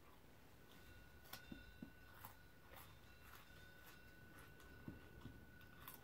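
Near silence: room tone with a few faint scattered ticks and a faint steady high-pitched tone that starts a little under a second in.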